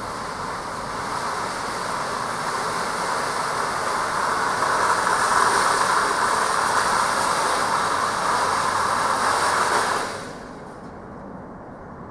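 Noise from a supermarket goods yard during home-delivery van loading: an even rushing noise with no clear tone. It grows louder over several seconds and cuts off abruptly about ten seconds in.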